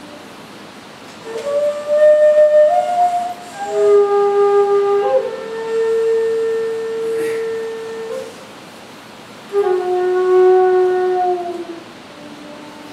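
Long bamboo transverse flute playing a slow, solo melody of long held notes in three phrases, separated by short pauses. The first note comes in about a second in, and the notes step up and slide between pitches, with one long note held for about three seconds in the middle.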